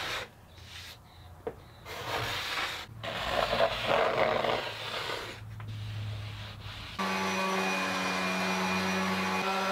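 A steel card scraper is drawn along the edge of a plywood tabletop in a series of uneven scraping strokes, shaving the edge banding flush. About seven seconds in, these give way abruptly to a corded random orbital sander running steadily on the plywood with an even motor hum.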